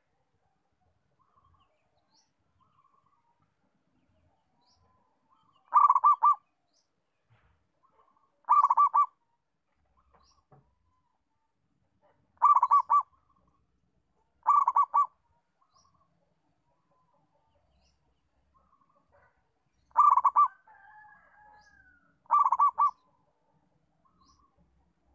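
Zebra dove (perkutut) cooing: six short phrases of rapid staccato notes, each about half a second long, repeated every few seconds.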